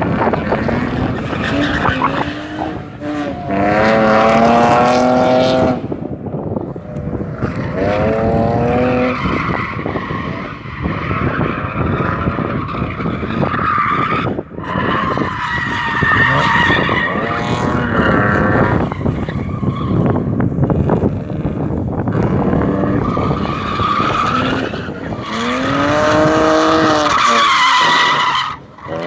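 BMW drift cars sliding: engines revving hard in repeated rising surges, and tyres squealing in long, drawn-out slides.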